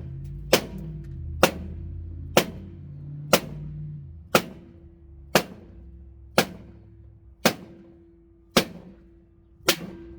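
Hammer blows driving a front-load washer's drum shaft out of its rear bearing: ten sharp strikes, evenly spaced about a second apart and slowing slightly.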